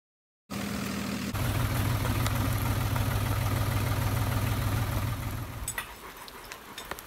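Tractor engine idling as a steady low pulsing hum, dropping away near the end with a few light clicks.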